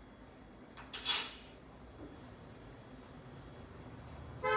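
A metal spoon clinks against a small glass bowl about a second in: a sharp click, then a brief bright ringing. Near the end there is a short horn toot.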